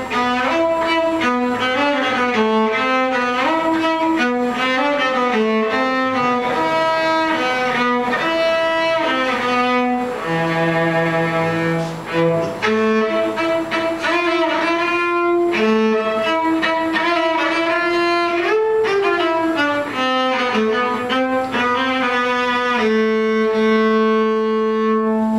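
Solo cello played with the bow, a melody moving note by note, and closing near the end on one long held note.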